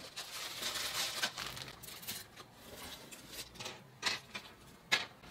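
Handling sounds: a cloth drawstring bag rustling as it is opened, then a clear plastic parts bag crinkling as it is pulled out and handled, with a few light clicks in the second half.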